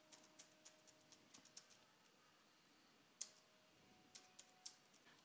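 Faint computer keyboard typing: scattered, irregular keystrokes, with one slightly louder tap about three seconds in and a quick run of taps near the end.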